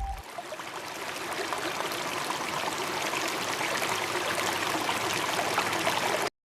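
Running water, a steady rushing like a stream, which cuts off abruptly near the end.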